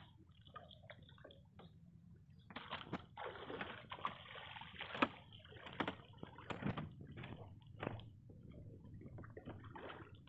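Bare feet walking through soft, wet tidal mud and shallow water: irregular squelching steps with small slaps and sloshes, mostly from a couple of seconds in.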